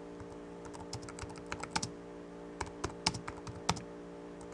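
Typing on the chiclet-style keys of an HP TouchPad wireless Bluetooth keyboard: an irregular run of key clicks, a few struck harder than the rest.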